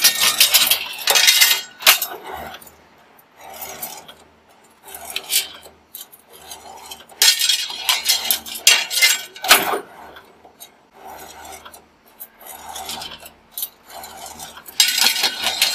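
Steel rebar clattering and scraping against the rollers and bending head of a CNC rebar bending machine, in irregular bursts of metallic clinking a few seconds apart, with short spells of low hum between.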